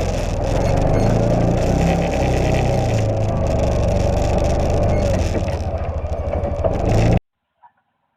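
Side-by-side UTV engine running steadily while plowing snow, dropping to a slower, pulsing idle near the end. The sound then cuts off abruptly about seven seconds in.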